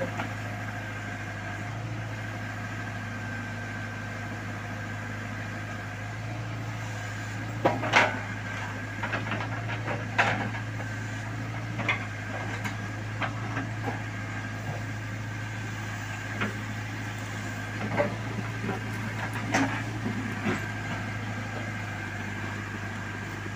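Caterpillar backhoe loader's diesel engine running steadily as the backhoe arm digs a pit, with scattered knocks and clunks from the bucket and linkage, the loudest about eight and ten seconds in.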